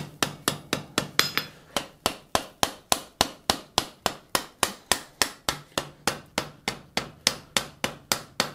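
Hand hammer striking a white-hot steel collar on the anvil in a steady run of sharp blows, about three a second, forge-welding the collar at welding heat.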